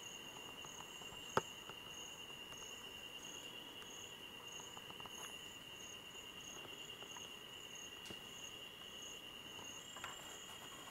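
Night insects calling: a steady high cricket trill with a higher chirp that pulses about twice a second. A single sharp click comes about a second and a half in.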